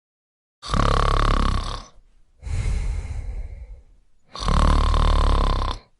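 A person snoring: two loud snores, each about a second and a half long, each followed by a quieter breath out.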